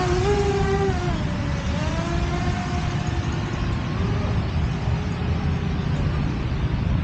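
Small quadcopter drone's propellers whining in flight, the pitch wavering with throttle and fading about a second in as it moves away, then faintly audible again, over a steady low background rush.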